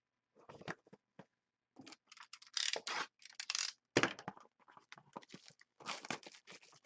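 Sports-card packaging being torn open and handled: irregular scratchy tearing and rustling, loudest about four seconds in.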